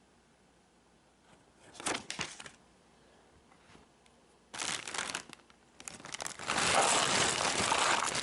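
Plastic packaging crinkling as a jigsaw puzzle is unboxed: two short rustles, then a louder, longer stretch of crinkling near the end.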